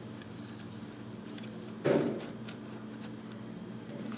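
Plastic Transformers Cliffjumper toy car being turned around by hand on a tabletop: soft rubbing and handling noise, with one louder short scrape about two seconds in, over a low steady hum.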